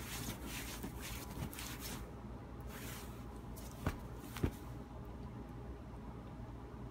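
Rustling of bedding and clothing as a baby moves on a bed, in bursts during the first few seconds, with two short sharp clicks about four and four and a half seconds in, over a steady low hum.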